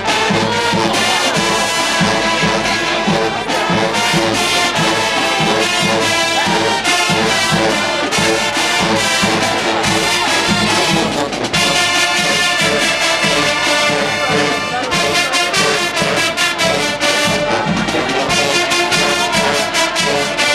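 College marching band playing loudly, a full brass section of trombones and trumpets over a drumline beating out a steady rhythm.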